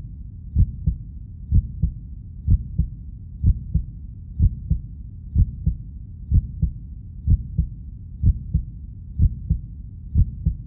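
Heartbeat sound effect: a steady, slow lub-dub of paired low thumps repeating about once a second.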